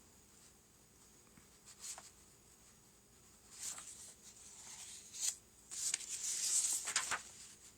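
Rustling and light scraping of thin hull-plating pieces being handled and shuffled. Mostly quiet at first, then a run of rustles from about halfway through, busiest near the end.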